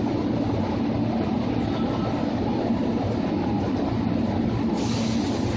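Seibu 2000 series electric train running, heard aboard motor car MoHa 2375: a steady rumble of wheels on rail and the traction motors underfoot. A hiss joins in about five seconds in.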